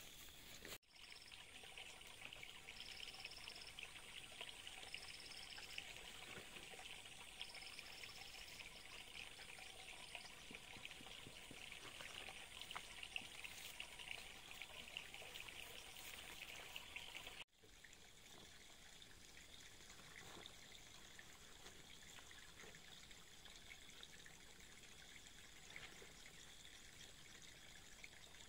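Faint running water, a trickle or small stream, as a steady hiss that cuts off abruptly and resumes twice. A few short high-pitched tones sound over it in the first part.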